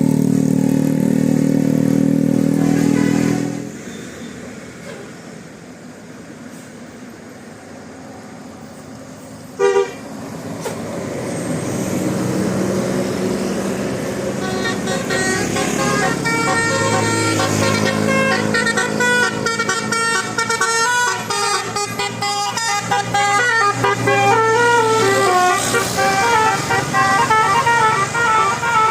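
Bus telolet horn, a multi-tone musical air horn. It holds a loud chord for about three and a half seconds, gives one short blast near the ten-second mark, then from about fifteen seconds plays a fast tune of stepping notes.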